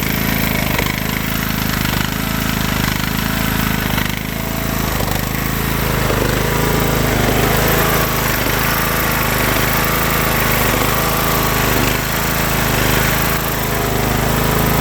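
Craftsman riding lawn mower engine running steadily at idle, warming up after a cold start. Its note wavers in a slow, even rhythm about once a second.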